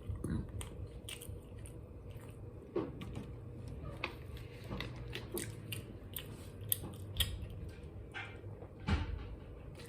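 A person chewing a bread roll with cream cheese close to the microphone, with scattered small clicks and mouth smacks.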